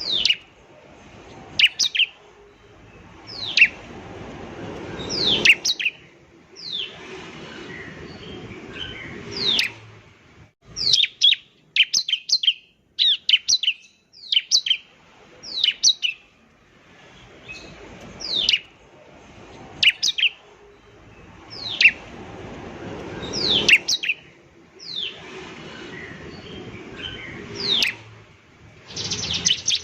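Bar-winged prinia (ciblek) singing. Its song is sharp, downward-sliding chirps in short clusters every couple of seconds, over a background hiss that swells between phrases, and it breaks into a fast run of evenly repeated notes at the very end.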